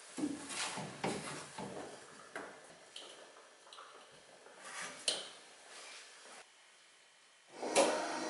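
Rustling and scattered light knocks and clicks of hands working at a van's dashboard wiring, with a sharper click about five seconds in. Background music starts near the end.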